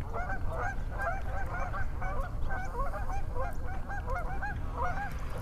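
A flock of birds calling continuously, many short rising-and-falling calls overlapping several times a second.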